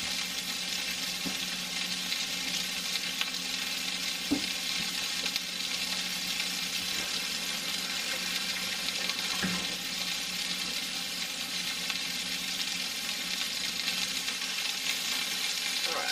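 Hamburger patties frying with a steady sizzle, with a few faint knocks, the clearest about four seconds in.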